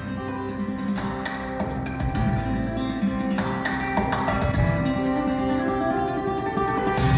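Guitar-led instrumental music played back through KEF LS50 Meta bookshelf speakers and picked up by a phone microphone: a steady flow of plucked notes ringing over held tones, with a deep low note coming in near the end.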